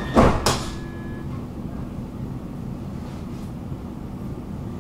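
Sliding doors of a Stockholm metro car closing, two quick loud thuds within the first half-second as they shut, while a steady high tone stops about a second in. After that the stopped train's steady low hum carries on.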